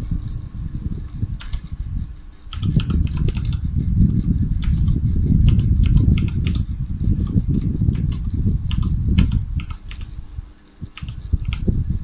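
Keys of an igk61 mechanical keyboard being pressed in irregular clicks, some in quick runs, over a loud low rumble.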